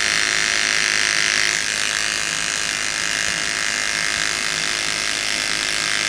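Electric animal hair clippers running with a steady buzz, clipping the fur of a sugar glider around the wound in its gliding membrane to prepare the site for stitching.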